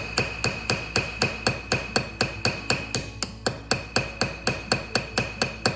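Small hammer peening a brass pin on a slip joint pocket knife: rapid, even light taps, about four a second, each with a bright metallic ring, stopping just before the end. The blows spread the brass inside the handle to pull the liners and scales tight.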